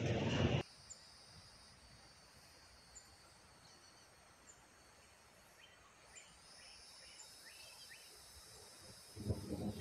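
Wind gusting over the microphone and through the trees, cutting off abruptly about half a second in. A quiet lull follows with a steady high insect drone and a few short bird chirps, and the wind gusts pick up again near the end.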